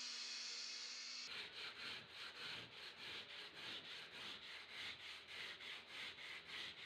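Sandpaper rubbed by hand back and forth over a fibreglass car body panel, a scraping rub at about two strokes a second. It starts after about a second of steady hiss.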